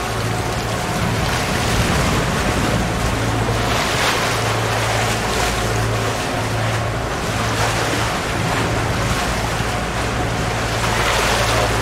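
Sea water rushing along a moving catamaran's hull, with wind on the microphone and a steady low hum underneath. The rushing hiss swells about four seconds in and again near the end.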